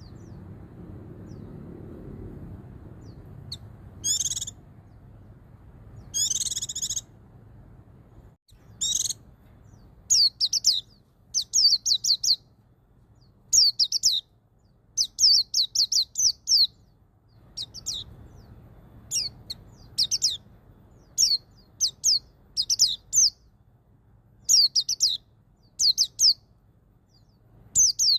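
Pleci (white-eye) singing in the ngalas style: a few longer, buzzier calls, then short phrases of quick, high notes repeated every second or so.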